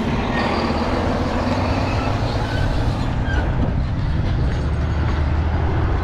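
Steady wind rumble buffeting the microphone of a moving bicycle, with a crosswind from the left.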